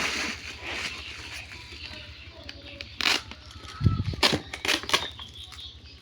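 A parcel's packaging being handled and torn open: rustling, several sharp snaps and knocks in the second half, and a low thump about four seconds in.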